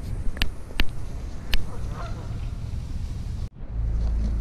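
Waterfowl calling, with three sharp clicks in the first second and a half over a low rumble. About three and a half seconds in, the sound cuts out briefly and a steady low music drone takes over.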